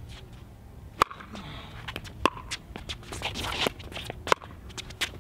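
Pickleball rally: paddles striking a hard plastic pickleball with sharp pops, the serve about a second in, followed by three more hits roughly a second apart.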